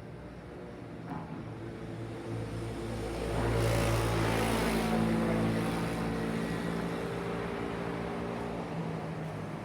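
A motor vehicle passing by: its engine hum and road noise swell to a peak about four seconds in, then fade away slowly.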